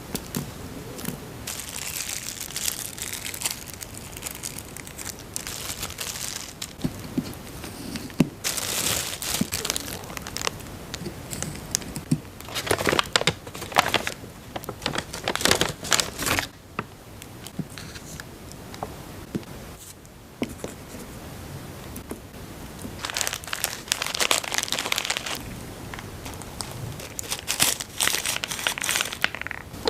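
Candy packaging crinkling and tearing, in irregular bursts with short quieter gaps.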